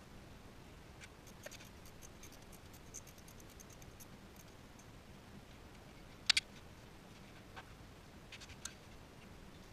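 Scattered light clicks and scrapes of hands working on parts under a car, with a sharper double click about six seconds in.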